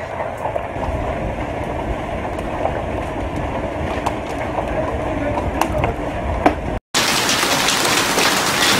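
Hailstorm: a steady deep rushing of wind and hail with scattered sharp hailstone clicks. After a cut about seven seconds in, it becomes a brighter, denser hiss of hail pelting water, full of fine ticks.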